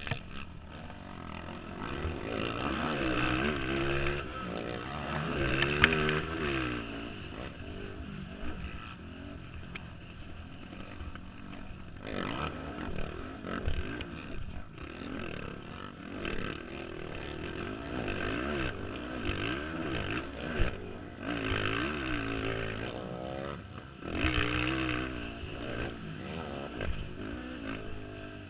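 Several racing ATV engines revving up and down as the quads run the motocross track, their pitches overlapping. The sound swells louder as bikes pass, a few seconds in and again about three-quarters of the way through.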